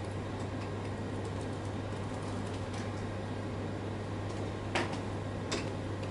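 Classroom room tone: a steady low hum under a soft noise floor, with a few faint clicks and two short knocks about five seconds in.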